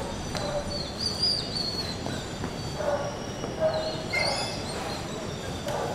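Steady outdoor background noise with faint high chirps, about a second in and again around four seconds, and a few short, faint voice-like calls near the middle.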